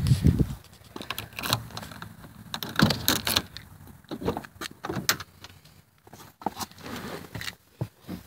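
A string of short clicks and knocks: a car key at the driver's door lock and handle, then the door opening as someone climbs into the car.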